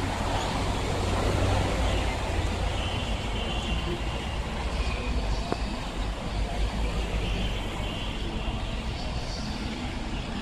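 City street traffic: cars driving past on a busy road, a steady wash of noise with a strong low rumble.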